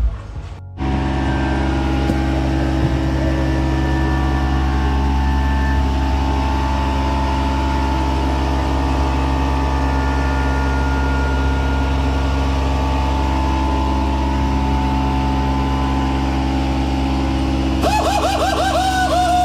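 A steady mechanical hum, like a motor running, holding one pitch without change; it starts about a second in, and a few quick wavering tones come in near the end.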